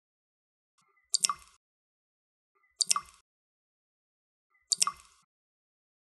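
Water dripping into water: three single drops, roughly two seconds apart, each a sharp plop with a brief ringing plink.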